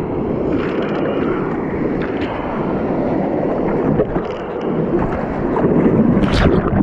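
Choppy surf water rushing and splashing, a steady churning rush with a louder surge near the end.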